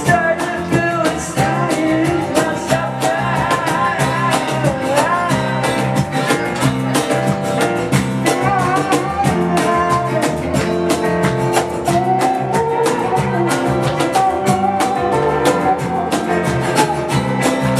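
Live acoustic performance: a male voice singing a melody over a strummed acoustic guitar, with a cajón played by hand keeping a steady beat of quick slaps.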